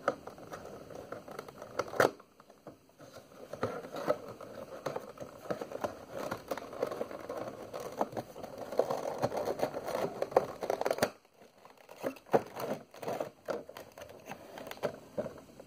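Clear plastic packaging crinkling and clicking as a vinyl figure is worked out of its cardboard window box and plastic insert, with a sharp snap about two seconds in and a short lull near the end.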